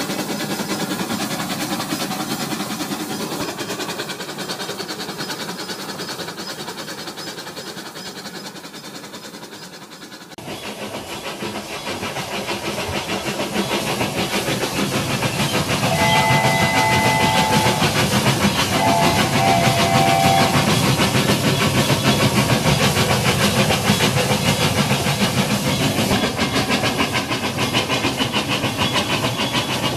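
Toy train running along its track with a steady, rhythmic rattle. The sound fades, then cuts about a third of the way in to louder running noise. Two short whistle sounds come about halfway through, a couple of seconds apart.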